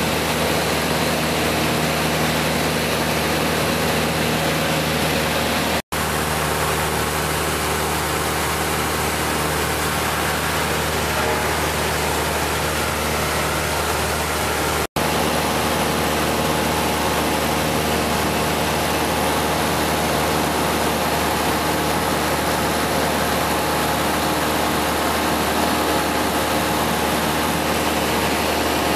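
Light aircraft's piston engine and propeller droning steadily, heard inside the cabin. The sound cuts out for an instant twice.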